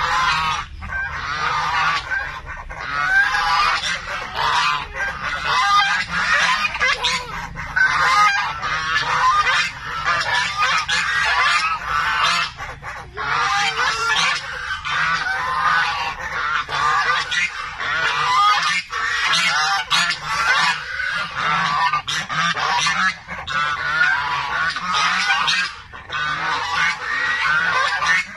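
A flock of white domestic geese honking almost without a break, many calls overlapping.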